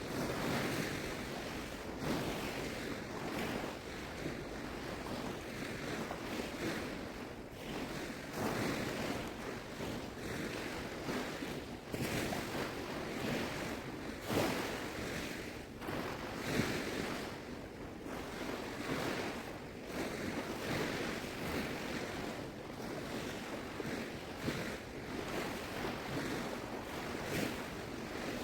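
Shallow seawater sloshing and small waves washing in the surf, swelling in repeated surges, with wind buffeting the microphone.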